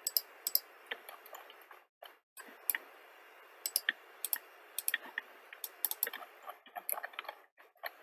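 Computer mouse clicking irregularly, about twenty short sharp clicks, some in quick pairs, over a faint steady hiss.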